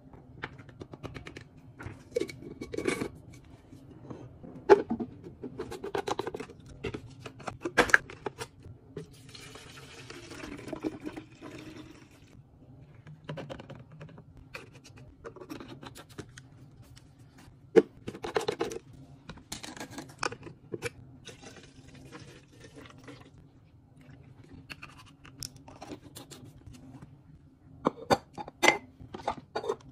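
Liquid laundry detergent pouring into containers, among many short clicks and knocks of plastic bottles, caps and a glass jar lid being handled on a countertop.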